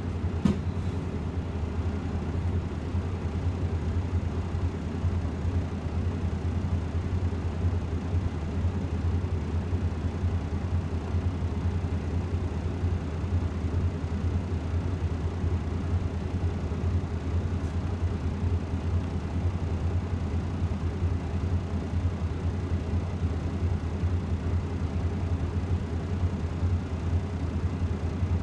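Steady low drone in the cabin of an Iveco Urbanway 18 Hybrid articulated bus, with a single click about half a second in.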